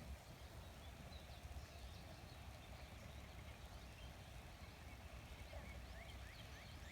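Faint bird chirps over a low rumble, with a quick run of chirps near the end.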